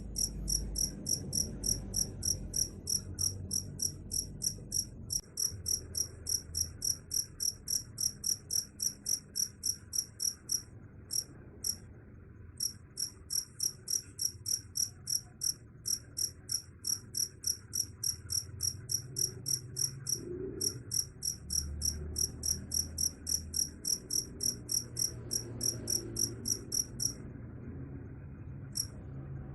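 Cricket chirping in a steady run of short, high chirps, about three a second. The chirping breaks off briefly about eleven seconds in and again near the end.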